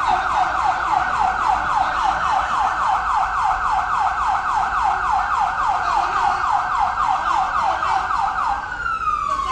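Ambulance siren sounding a rapid yelp, about four sweeps a second. Near the end it switches to a slow wail, a single long falling tone.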